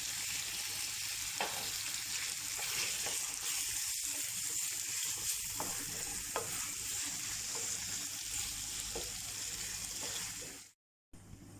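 Ground meat in tomato sauce sizzling in a frying pan as it is stirred, with a spatula scraping and clicking against the pan now and then. The sizzle cuts off abruptly near the end, leaving a fainter hiss.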